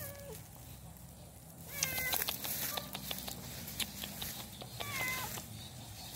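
A young tabby cat meowing: a call tails off at the start, then two more meows come about two and five seconds in, each bending in pitch. Short crackles and rustles run between the meows.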